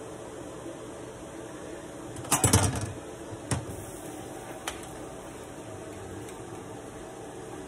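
A metal spoon clattering against a stainless steel cooking pot about two seconds in, followed by a single knock and a faint click, over a steady background hum.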